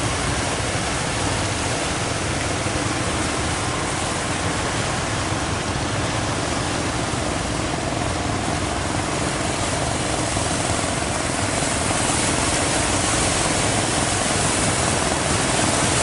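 Steady rush of surf and breaking waves mixed with the running of fishing boats' diesel engines working hard through the breakers.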